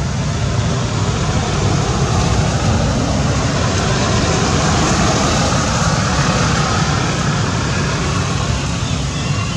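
Steady, loud rushing background noise with no distinct events.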